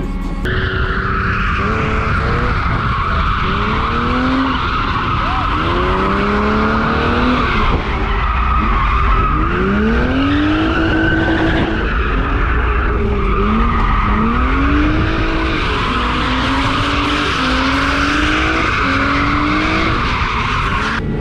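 BMW E36 drift car's engine revving up and down repeatedly as it drifts, heard from on board, with its tyres squealing almost without a break.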